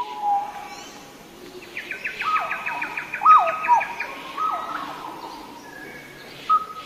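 Birds singing: a rapid trill in the middle, over repeated whistled notes that drop in pitch, and scattered chirps.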